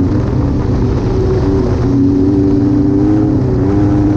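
Holden Commodore 3.8-litre V6 (Buick V6) of a wingless sprint car, running on methanol at race speed through a 3-into-2 exhaust, a system the owner says sounds bad, heard onboard. A loud, steady engine note that dips briefly about one and a half seconds in and edges up near the end.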